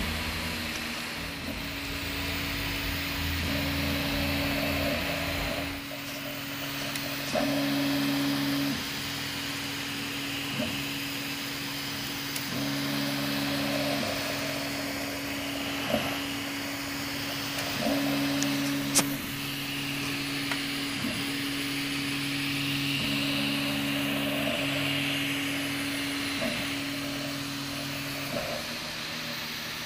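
Prusa 3D printer at work: its stepper motors hum in steady tones that jump to a new pitch with each move of the print head, over the constant hiss of its fans. A couple of sharp ticks come partway through.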